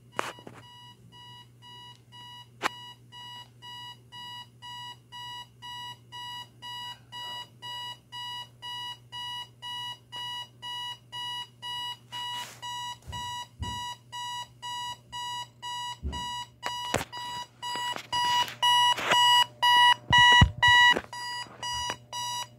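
Timex radio alarm clock's buzzer alarm beeping, a high-pitched beep about two and a half times a second, gradually getting louder and loudest near the end. A few sharp knocks and a steady low hum sound along with it.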